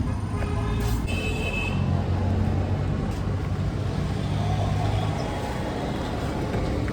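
Road traffic: vehicle engines running steadily, with a few brief high tones.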